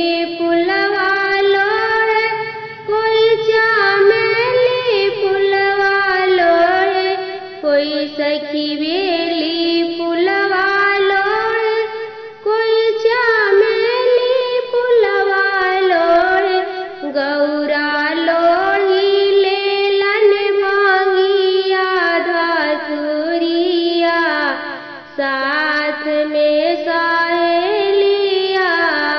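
A woman singing a traditional Bhojpuri Teej vrat folk song in a high voice, line after line with brief pauses between them.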